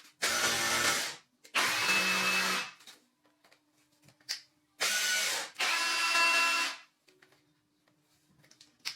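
Power tool running in four short bursts of about a second each, started and stopped with quiet gaps between, the second pair close together.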